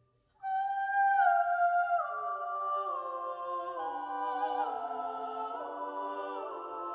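Small mixed choir singing in harmony: the voices enter together about half a second in, after a moment of silence, and move through sustained chords.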